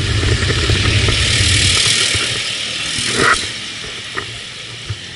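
A nearby motor vehicle's engine rumbling low in passing road traffic, fading after about two seconds. Under it runs a steady hiss of wind on the microphone from riding, with one short knock a little past three seconds.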